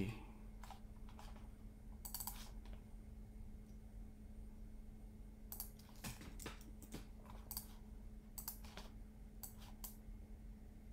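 Faint, irregular clicks of a computer mouse and keyboard, a dozen or so scattered taps, some in quick pairs, over a faint steady hum.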